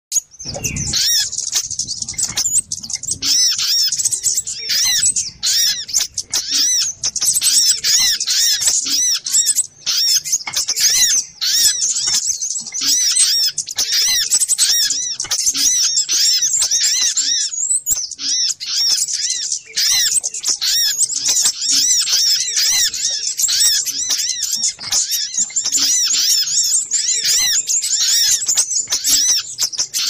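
Olive-backed sunbirds (sogok ontong) calling: a dense, unbroken chatter of overlapping high-pitched chirps, with a brief low thump right at the start.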